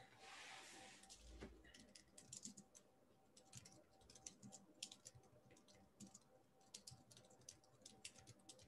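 Faint computer keyboard typing: irregular runs of quick key clicks.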